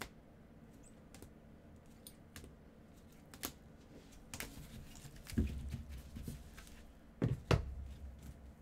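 Trading cards in rigid plastic top loaders clicking and tapping against each other as they are handled with nitrile-gloved hands. There are a few heavier knocks about five and a half and seven and a half seconds in.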